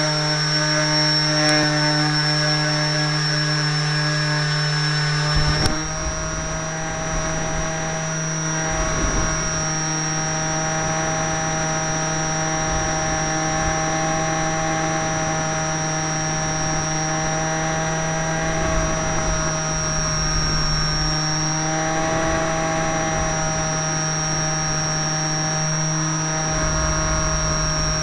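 Motor and propeller of a radio-controlled canard model aeroplane, heard from a camera on board, running at a steady pitch with a thin high whine above it. A little over five seconds in the sound changes abruptly as the plane leaves the ground, and wind rumbles over the microphone through the flight.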